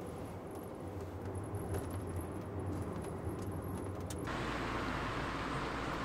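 Car driving, heard from inside the cabin: a steady low engine hum with small rattles and clicks. About four seconds in it switches abruptly to the car heard from the roadside, a steadier hiss of tyres on the road with the engine underneath.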